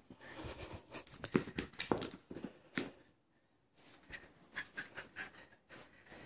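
Scattered short clicks and scrapes from a small dog pawing and mouthing a hard plastic toy football on carpet. The noises stop for about half a second around three seconds in, then pick up again more sparsely.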